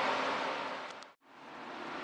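Steady background hiss that fades out to silence just past a second in, then fades back in: a fade at a cut between two scenes.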